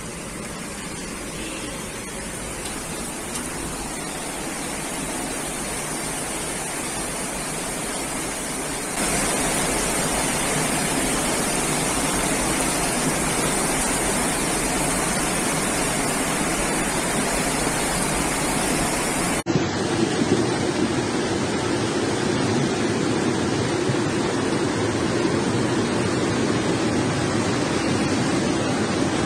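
Steady rushing noise of muddy floodwater torrents, with heavy rain in the first part. The sound changes abruptly about nine and nineteen seconds in, each time getting louder.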